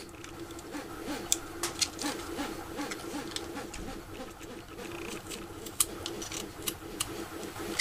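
Utility knife blade scraping and shaving thin slivers off a small piece of wood, a run of light scrapes and sharp little clicks, over a steady low hum.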